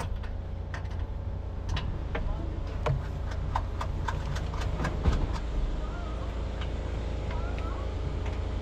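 An engine running steadily at idle, a low even hum, with scattered clicks and knocks over it.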